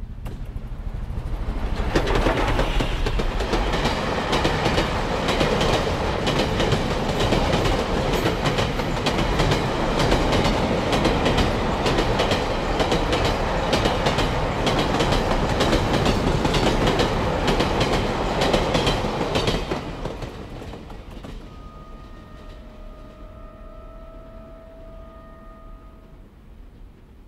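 A train passing by, its wheels clattering over the rail joints. It builds up over the first two seconds, stays loud for about seventeen seconds, then fades away, with a faint steady tone heard near the end.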